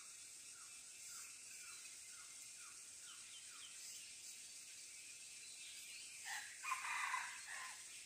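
A red junglefowl rooster crows once, a little after six seconds in, a single call of about a second and a half.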